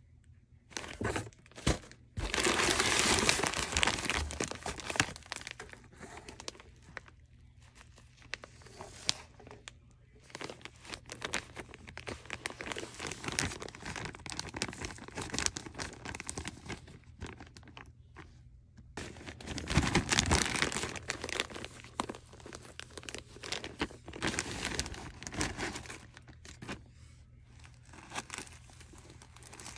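Clear plastic zip-top packaging bags crinkling and rustling as they are handled and pulled open, in uneven bursts with two louder, longer stretches, one a couple of seconds in and one about two-thirds of the way through.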